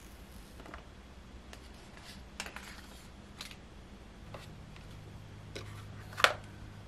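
Unboxing handling sounds: the paper wrap being peeled off a new iPhone 12 Pro Max's screen and the phone and box pieces handled, a scatter of light clicks and rustles. A sharper click comes about six seconds in.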